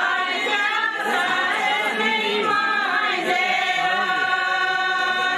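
A group of women singing a traditional Kashmiri wedding song together, unaccompanied, with long held notes.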